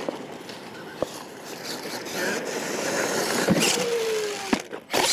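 Radio-controlled monster truck running across a dirt course, its motor revving up over the first few seconds. Sharp knocks come as it hits ramps, and near the end it goes up and flips over.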